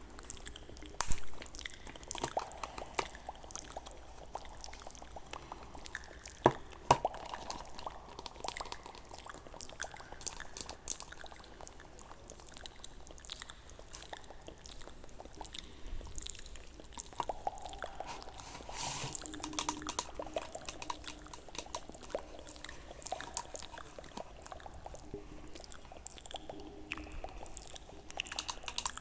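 Kinetic sand being handled: many small crackles and taps, with short stretches of soft pouring hiss.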